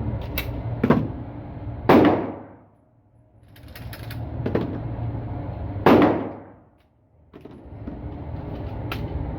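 Gunshots at a shooting range: two loud single shots about four seconds apart, each with a short ringing tail, with fainter pops in between.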